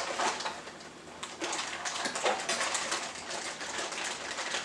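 Handling of packaging and small metal rifle-mount parts: irregular rustling and light clicks and taps.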